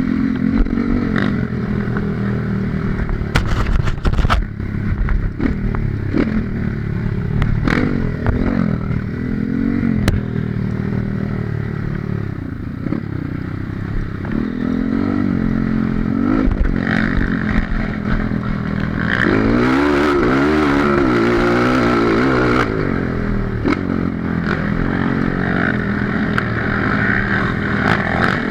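Honda CRF230 single-cylinder four-stroke dirt bike engine running on a rough trail, its revs rising and falling again and again, with the bike's clatter and scraping over the ground. There are sharp knocks about three to four seconds in, and a stretch of hard revving about two-thirds of the way through.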